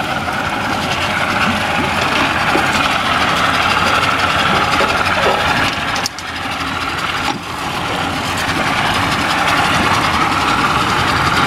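Yamaha tiller outboard motor idling steadily, with its level dipping briefly twice around the middle.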